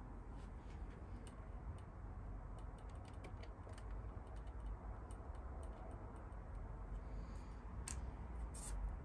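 Scattered light clicks and taps of small plastic model-kit parts being handled and fitted, with a sharper click and a brief rattle near the end, over a low steady hum.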